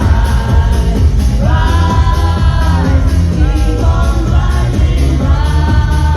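Loud dance music from a live club set: a heavy, steady bass beat with a gliding melodic line over it.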